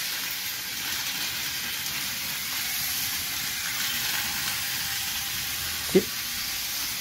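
Rail King battery toy train running fast on plastic track: a steady hissing whirr from its small electric motor and wheels, driven on two 3.7-volt cells in series (7.4 V). A short, sudden blip about six seconds in.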